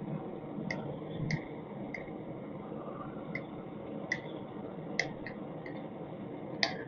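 Gas blowtorch flame hissing steadily as it heats a small steel part for tempering, with about ten sharp light clicks scattered irregularly as the part is turned with pliers on the firebrick.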